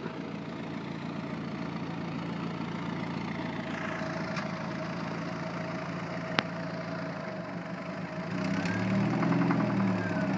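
1952 Willys M38 Jeep's four-cylinder flathead engine running steadily as the Jeep drives slowly. A single sharp click comes about six seconds in. Near the end the engine gets louder, its pitch briefly rising and falling.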